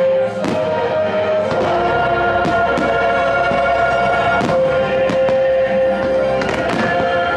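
Aerial fireworks shells bursting, a sharp bang about once a second, over the fireworks show's soundtrack music with long held notes.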